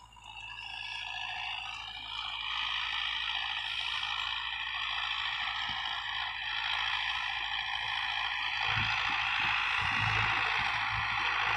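Distant tractor running steadily while it works a rotavator through ploughed soil, getting slightly louder toward the end.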